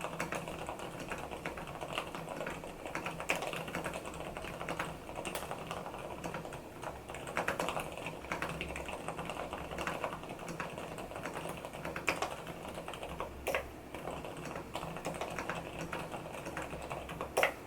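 Fast continuous typing on an mStone Groove T SF keyboard with fully lubricated Gateron silent brown switches, the keystrokes coming in a dense steady stream with a few louder strokes here and there.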